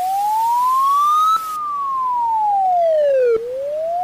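Poland's emergency alarm siren wailing as a single pure tone, like a hearing test. It rises slowly to a peak about a second and a half in, falls for about two seconds, then starts rising again.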